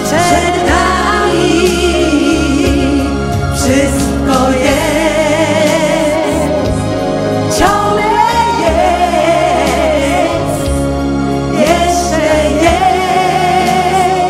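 A woman singing a song into a microphone over band accompaniment, holding long notes with vibrato.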